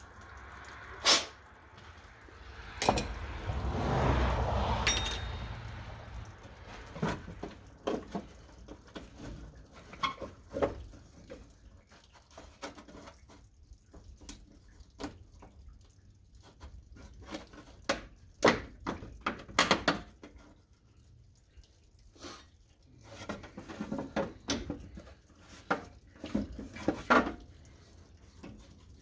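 Hand tools and metal parts clicking and knocking now and then as hands work at the tractor's dash around the ignition switch. There is a sharp click about a second in, a longer rustling scrape a few seconds in, and more clicks and knocks later.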